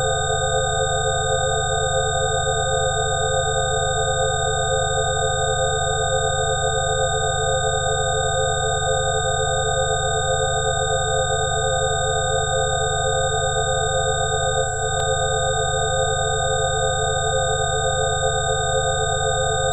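Layered electronic sine tones held steady at several fixed pitches at once, from a low hum up to a thin high whistle, with a slight pulsing in the middle tones. A brief dip and faint click come about three quarters of the way through.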